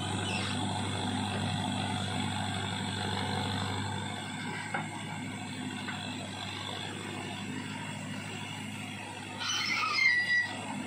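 Tractor diesel engine running steadily while powering a rear-mounted backhoe as it digs and swings soil. Near the end there is a brief louder burst of clatter and squeal as the bucket dumps its load into the trailer.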